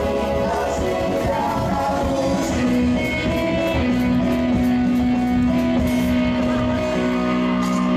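A rock-style pop song with a singer over guitar and band accompaniment, the voice holding one long note through the second half.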